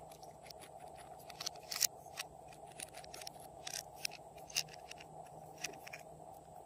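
Small gold-coloured decorative bottles and their caps handled, giving a string of light, irregular clicks and taps of hard pieces touching, the sharpest a little under two seconds in, over a steady faint hiss.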